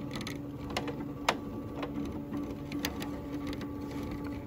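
SWF MAS-12 embroidery machine jogging its cap frame through a trace of the design outline, without stitching: a steady motor hum with short breaks and a few sharp clicks, the loudest about a second in.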